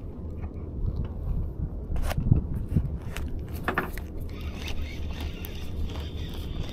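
Low steady rumble with a few scraping and knocking sounds from a fishing rod and baitcasting reel being handled, the loudest about two seconds in and near the middle.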